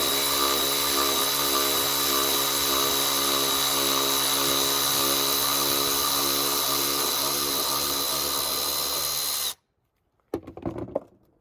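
Milwaukee Fuel 3/8-inch cordless ratchet running in reverse at full speed, backing a lag screw out of a 2x4, a steady motor whine with the head ratcheting. It cuts off suddenly about nine and a half seconds in, followed by a few light knocks of the tool being handled.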